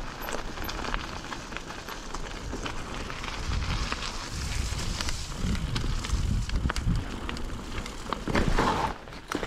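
Mountain bike riding down a rough dirt trail: a steady crunch of tyres on gravel, with small clicks and rattles from the bike. Gusts of low wind rumble hit the microphone from about three seconds in.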